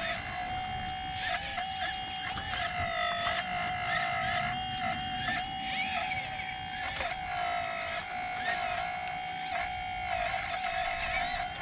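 Steady high whine of an RC excavator's hydraulic pump, briefly sagging in pitch now and then as the arm works under load. Repeated high chirping sounds come and go over it.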